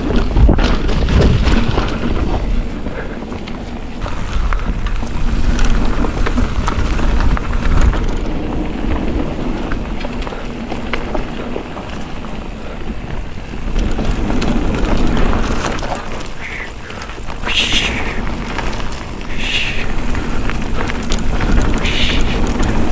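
Mountain bike descending a dirt downhill trail: wind buffeting the microphone over the rumble of tyres and the rattle of the bike, with a few short hissing bursts near the end.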